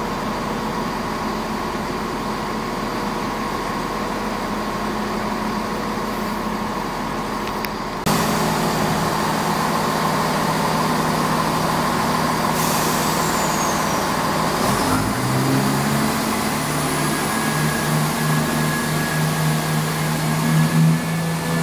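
Steady low station hum, then about a third of the way in the sound jumps louder to a Chiltern Railways Class 168 diesel multiple unit running beside the platform. About two-thirds of the way in its engine note rises and holds as the diesel engines take power to move the train.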